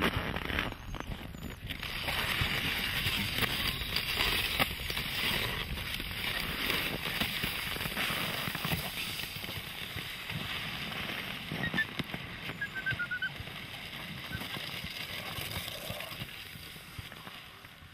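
Dry, frozen snow crunching and scraping under feet or sled runners: a dense, steady crackle that fades near the end.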